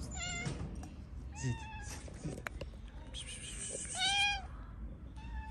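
Street cats meowing for food: three meows about half a second each, at the start, about a second and a half in, and the loudest about four seconds in.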